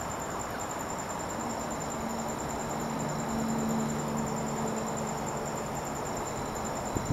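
Crickets chirping in a steady, even pulse over a constant outdoor hiss. A low hum swells and fades in the middle, and there is a sharp click near the end. No thunder is heard with the lightning flash.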